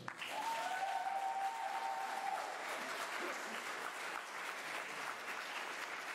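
Audience applauding, a dense steady clatter of clapping. A held high tone sits over it through the first two seconds.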